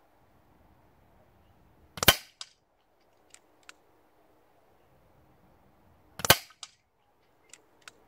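Daystate Redwolf .177 PCP air rifle fired twice, about four seconds apart: a sharp crack each time, a fainter knock about a third of a second later, then two light clicks as the action is worked to load the next pellet.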